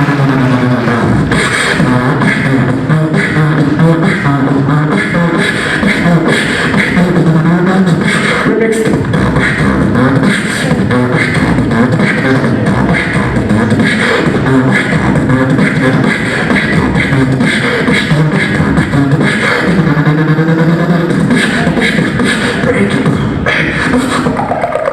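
Human beatboxing: fast drum sounds made with the mouth, punchy beats and crisp hi-hat clicks, laid over a hummed, wavering bass line.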